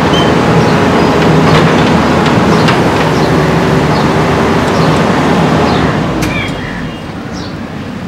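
JCB 3DX backhoe loader's diesel engine running hard while the backhoe arm is worked, then easing off about six seconds in.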